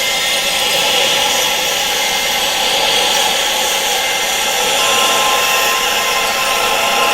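Steady wind-like hiss for tinnitus masking, with no low rumble and a bright, hissy edge, and several faint steady high tones held within it.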